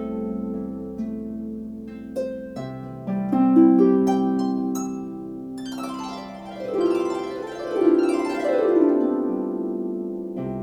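Music Makers Regency 34-string folk harp being played: single plucked notes and chords left ringing, then several quick downward glissandi across the strings in the second half.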